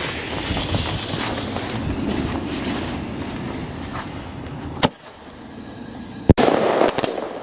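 Lesli Thunder Kong Smoke bomb tube firing: a steady hiss as the tube burns and smokes for about five seconds, then a short crack as the shell launches trailing yellow smoke. About a second and a half later comes a very loud, sharp flash-report bang that echoes, followed by a couple of smaller cracks.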